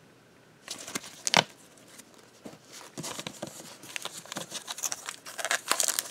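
Trading cards and a foil card-pack wrapper handled by hand: a few sharp clicks about a second in, then the foil wrapper crinkling, getting busier toward the end as the pack is worked open.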